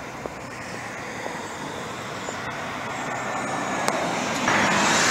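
City bus approaching and passing close by, its engine and tyre noise building steadily, with a loud rush of tyre and air noise as it goes by near the end.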